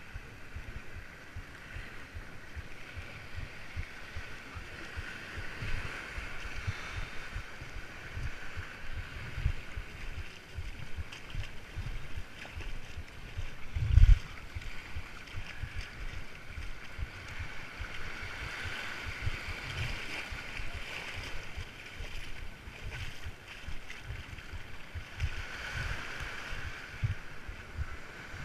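Small waves washing in on a sandy beach, with wind buffeting the microphone in gusts. One loud thump comes about halfway through.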